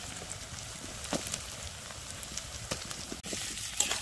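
Potato chunks frying in mustard oil in an aluminium kadai: a steady sizzle with scattered pops and crackles. After a brief dropout about three seconds in, a spatula stirs the potatoes against the pan with quick clicks and scrapes.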